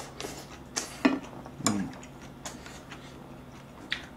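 Close-miked eating: a few scattered, sharp wet clicks and smacks of chewing, with light taps of wooden chopsticks against the dishes.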